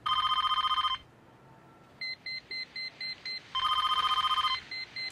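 Electronic telephone ringing: two warbling rings about a second long each, with rapid high beeps, about four a second, in the gaps between them.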